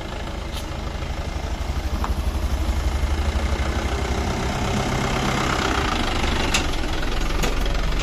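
Vehicle engine running steadily with a low rumble, getting louder about two seconds in.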